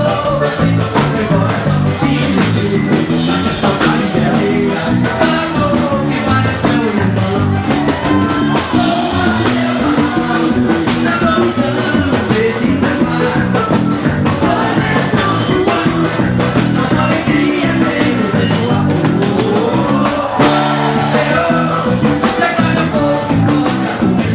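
Forró band music: a song with a singing voice over a quick, steady beat of drums and instruments.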